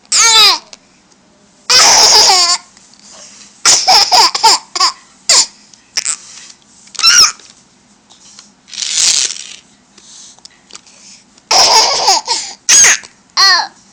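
A young child laughing and squealing in a string of short, high-pitched bursts, several falling in pitch, with brief pauses between them.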